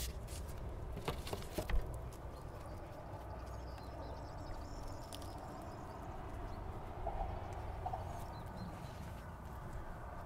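Low, steady rumble of heavy trucks crossing a bridge, with a few sharp clicks in the first two seconds.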